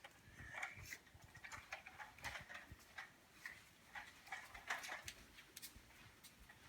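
Faint, irregular soft clicks and rustles, about two or three a second, fading toward the end: quiet handling noise.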